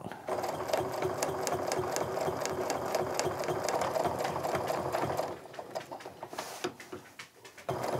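Baby Lock domestic sewing machine stitching steadily at a fast pace, its needle and ruler foot ticking rapidly, while free-motion quilting along an acrylic ruler. About five seconds in it slows to a few scattered clicks, then starts stitching again near the end.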